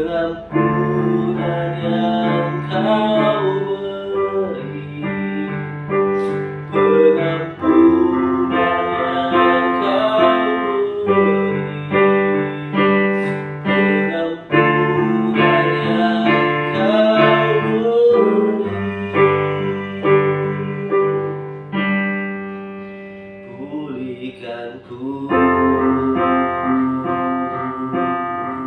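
Digital piano playing slow, sustained chords of a worship song, with a sung or hummed melody over it at times. The playing thins to a single held chord about three-quarters of the way through, then picks up again.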